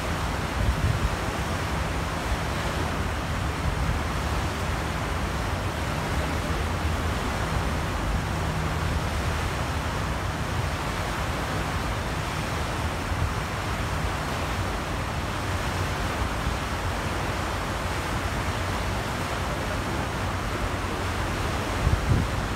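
Steady wind rumbling on the microphone, with a faint low hum underneath.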